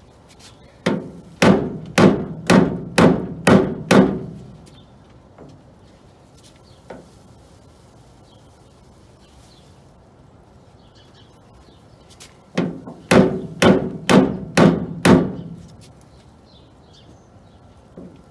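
Steel body dolly knocking on a flat steel tool wedged behind the edge of a 1967 Camaro's door, ringing metal knocks about two a second in two runs of six or seven, one starting about a second in and the other about two-thirds of the way through. The blows push a low, rolled-over spot on the door edge back up straight.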